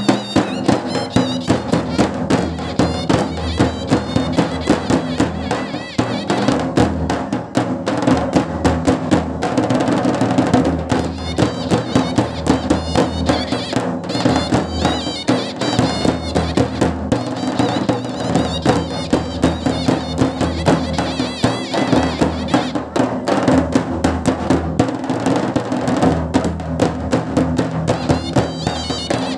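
Traditional village wedding band of large stick-beaten dhak drums and smaller drums playing a fast, steady rhythm, with a brass horn playing a wavering melody over the drumming.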